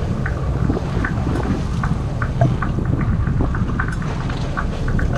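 Steady low rumble of wind buffeting the microphone, with scattered faint clicks and knocks.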